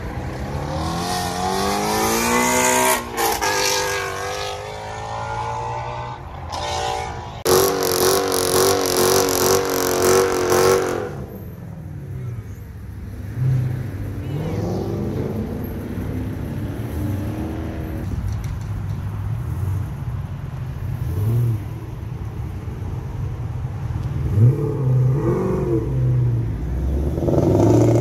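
Sports-car engines, Ford Mustangs among them, accelerating hard and revving. The pitch climbs over the first three seconds with a gear change, there is a loud stretch of high revs from about seven to eleven seconds, then quieter running with short blips of the throttle, and another hard acceleration near the end.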